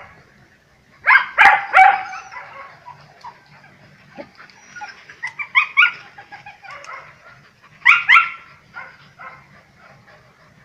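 Several dogs barking at a wild cat treed in a banana tree, in short flurries of loud barks about a second in, near the middle and about eight seconds in, with quieter barks between.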